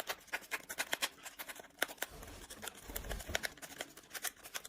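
A cat clawing and scratching at tea packaging to open it: a quick, irregular run of small clicks and scratches, with a soft low rumble of handling about halfway through.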